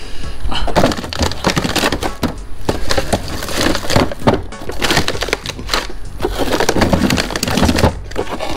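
Plastic packets of frozen food crinkling and crackling as they are rummaged through and shifted in a freezer drawer. It is a dense, irregular crackling throughout.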